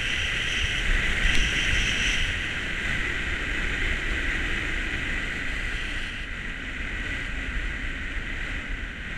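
Skis sliding and hissing over groomed snow on a downhill run, mixed with wind rushing over the camera's microphone; a steady rushing noise, a little louder in the first two seconds.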